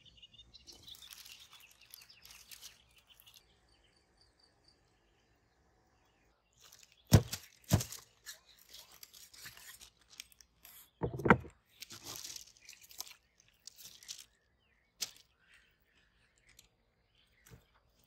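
Knife carving a whole spit-roasted boar, cutting through the crisp skin with tearing, crunchy sounds. Three sharp, loud cracks stand out, two close together about seven seconds in and one more a few seconds later.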